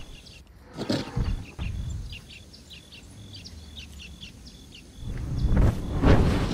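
Small birds chirping in a quick series of short, high calls over a quiet background, with a few low thuds about a second in. From about five seconds in, a loud low rumble rises and drowns them out.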